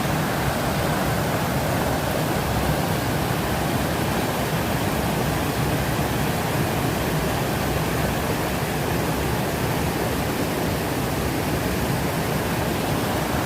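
Loud, steady rush of water pouring down a cascading waterfall on a river in spate.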